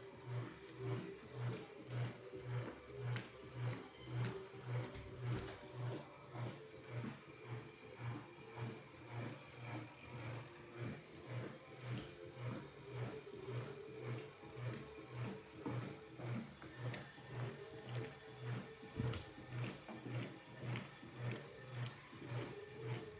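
Acros top-loading washing machine agitating, a low motor hum pulsing about twice a second as the agitator swings back and forth.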